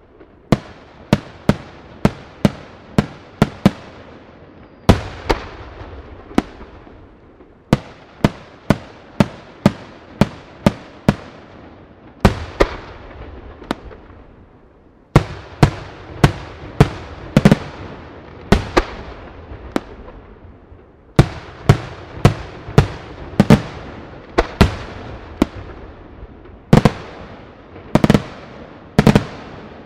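Aerial firework shells bursting overhead in a rapid series of sharp bangs, about one or two a second, each trailing off in echo. The reports bunch closer and louder in the second half.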